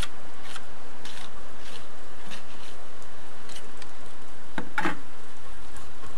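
Steel trowel scraping mortar onto the end of an aerated concrete block: a series of short, scratchy scrapes, with a louder, deeper scrape about four and a half seconds in.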